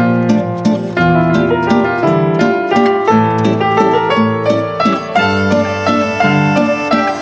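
Instrumental background music: a quick run of plucked notes over held low notes.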